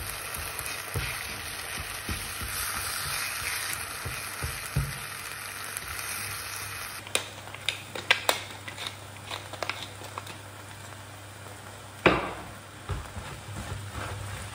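Eggs with diced tomato and onion sizzling in a frying pan while a wooden spatula stirs them. Partway through, a wooden pepper mill grinds over the pan in a run of sharp clicks. About twelve seconds in comes a single loud knock, followed by more stirring and scraping in the pan.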